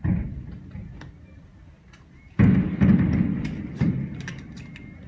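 Fireworks shells bursting with deep booms that rumble and echo away, one at the start and a louder one about two and a half seconds in, followed by rapid crackling from crackle-effect stars.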